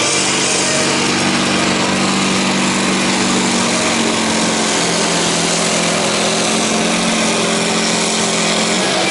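Scania truck's tuned diesel engine running flat out under heavy load as it drags a truck-pulling sled, a loud steady high-revving drone. Its pitch dips slightly partway through as the load builds.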